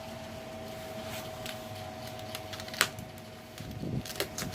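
Light handling sounds of the exhaust canister and its packaging: a single sharp click a little under three seconds in, then scattered rustling and small clicks near the end, over a steady faint hum.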